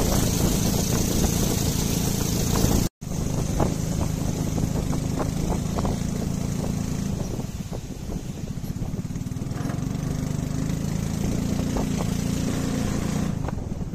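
Engine of a small wooden boat running steadily under way, with rushing wind and water. The sound cuts out completely for a moment about three seconds in, then resumes.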